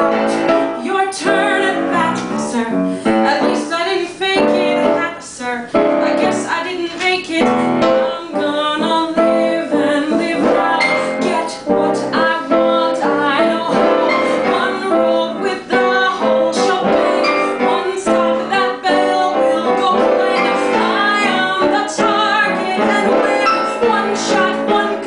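A woman singing a Broadway show tune with piano accompaniment.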